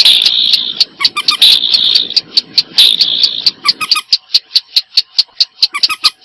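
Recorded calls of waterbirds of the rail family (common moorhen and a paddy-field rail) played as a bird lure. A harsh, dense chattering runs for about four seconds, then gives way to a rapid series of sharp clicking notes, about five a second.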